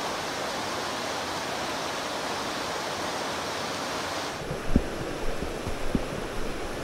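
Shallow river rushing steadily over rocks. About four seconds in it cuts off to a quieter backdrop with irregular low thumps.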